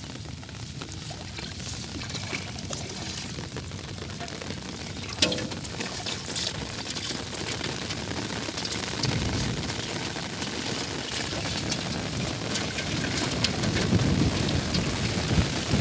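Water splashing and sloshing as people wade chest-deep and grope for fish by hand, with a sharp knock about five seconds in; the splashing grows louder toward the end.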